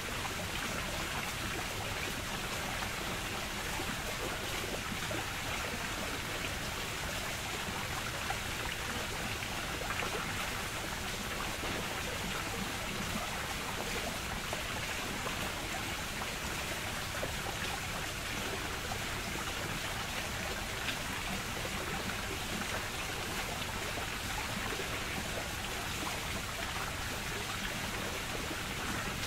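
Steady rush and trickle of running water, even and unbroken.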